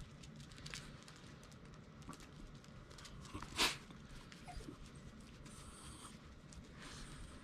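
Shiba Inus' claws clicking and scraping on asphalt and on cloth as the dogs mill about and paw at a person's knee, with one short, loud breathy huff about three and a half seconds in.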